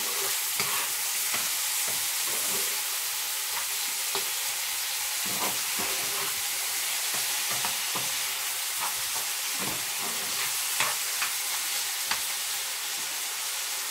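Chopped vegetables sizzling steadily in a non-stick frying pan while a utensil stirs them, with short clicks and scrapes against the pan now and then.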